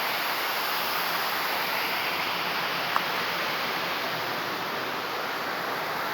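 Steady rush of flowing river water, even and unbroken, with a faint single click about three seconds in.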